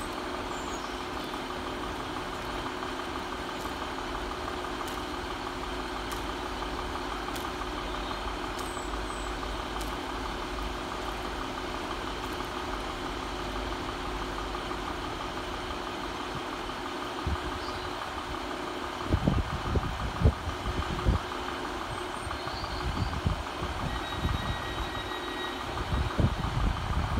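Northern Class 150 Sprinter diesel multiple unit standing at the platform with its underfloor Cummins diesel engines idling steadily. From about two-thirds of the way in, irregular low buffeting noise hits the microphone.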